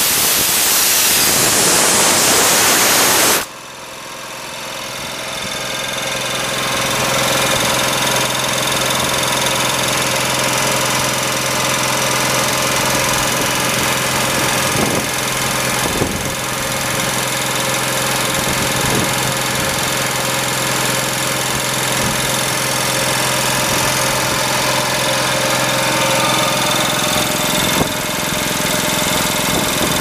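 A loud hiss cuts off abruptly about three seconds in. Then the Nissalco CM7165 high-pressure air compressor's belt-driven piston pump runs with a steady hum, growing louder over the next few seconds before it settles.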